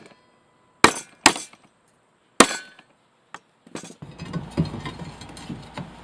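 Hammer striking a steel hanger bracket as it is bent into shape: three sharp metallic blows with a brief ring, then a couple of light clicks. Near the end, a steady low background with scattered small knocks comes in.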